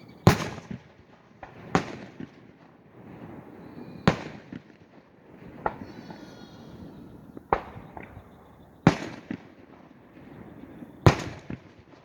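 Aerial firework shells bursting, seven sharp booms one to two seconds apart, each trailing off in a short rumbling echo.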